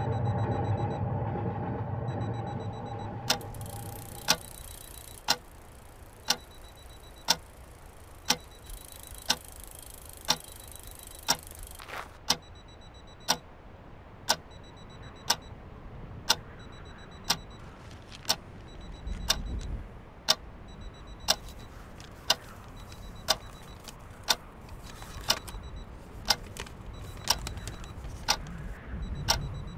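Sharp, evenly spaced clock ticks, about one a second, over a faint low background. A low droning tone fades out over the first few seconds before the ticking takes over.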